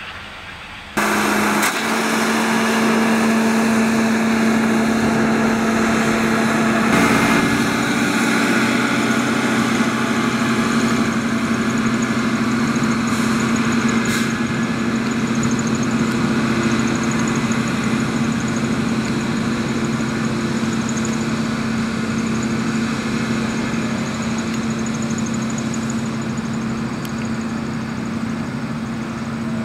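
Diesel engines of rail maintenance-of-way machines, a ballast regulator leading a tamper, running steadily as they travel along the track, with a constant droning tone. The sound starts abruptly about a second in.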